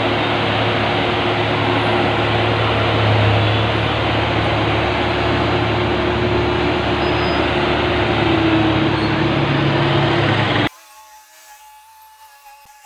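Loud, steady engine and road-traffic noise from vehicles and machinery, with a low hum held throughout. It cuts off abruptly near the end, leaving only faint steady tones.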